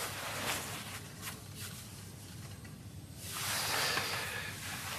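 Soft rustling of clothing as two people hug, with a few brief faint rustles in the first two seconds and a louder stretch of rustling from about three seconds in.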